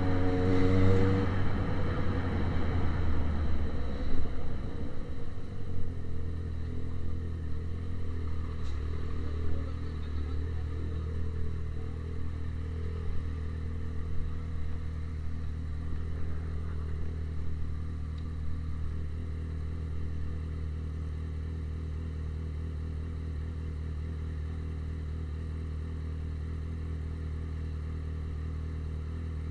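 Yamaha XJ6 600 cc inline-four motorcycle engine with a straight-piped exhaust, falling off from a rev in about the first second and then settling into a steady idle.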